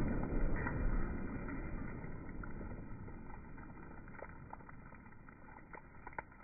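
Slowed-down, slow-motion playback audio of a water jug bursting from a 45-70 rifle hit. A low, muffled rumble fades away over about four seconds, and a few faint clicks come near the end.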